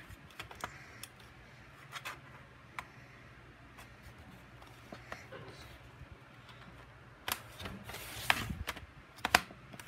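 Scattered plastic clicks and taps as a laptop's back panel is pushed and slid into place, with a cluster of louder clicks near the end.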